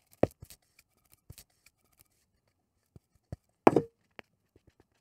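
Thick rye sourdough being scraped with a spatula out of a stainless steel bowl into a plastic mixing bowl: sparse soft clicks and scrapes, with one loud clack about three and a half seconds in and a smaller knock at the start.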